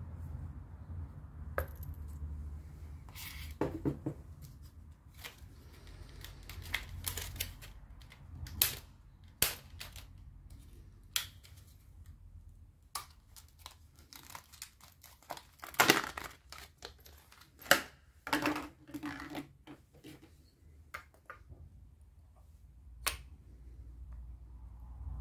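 Hard plastic being handled: a string of irregular sharp clicks, taps and rustles as new Landi Renzo LPG injectors are taken out of their clear plastic cases and pressed into the injector rail. The two loudest clicks come about two-thirds of the way through.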